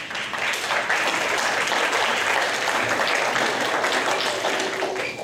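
Audience applauding; it starts suddenly and dies down near the end.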